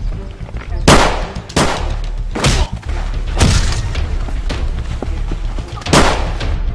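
Action-trailer soundtrack: a low, droning music bed cut through by a series of sharp hit and boom sound effects, about five heavy ones at uneven intervals with lighter ones between.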